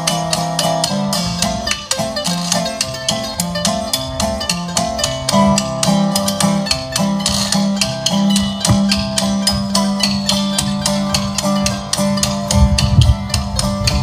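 Live string band playing an instrumental blues: mandolin and resonator guitar picking over a quick, steady washboard rhythm, with a low rumble a second or so before the end.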